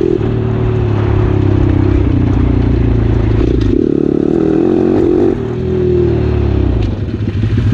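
Pit bike's small single-cylinder four-stroke engine running under throttle while riding, heard from on board. The engine note eases off about five seconds in, then picks up again near the end.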